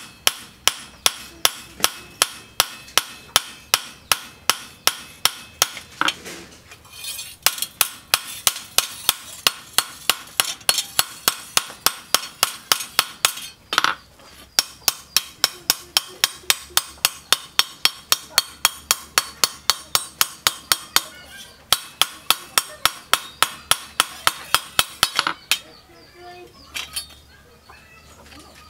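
Hand hammer striking a cleaver blade held in tongs on a steel stake anvil, about three ringing metal-on-metal blows a second. There is a short break about six seconds in, and only a few lighter strikes near the end.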